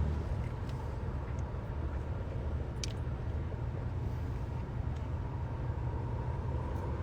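Steady low rumble of a pickup truck's engine and road noise heard from inside the cab while driving, with a few faint ticks.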